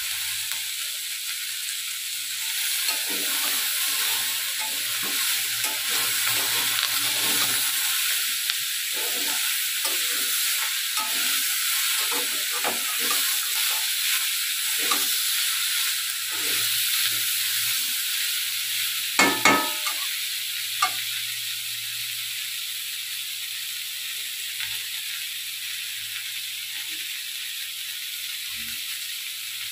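Ivy gourd greens, potatoes and aubergine frying in oil in a metal kadai, with no water added: a steady sizzle while a metal spatula stirs and scrapes through them. The stirring strokes come thick for the first half, with a louder pair about 19 seconds in, and then mostly the sizzle goes on alone.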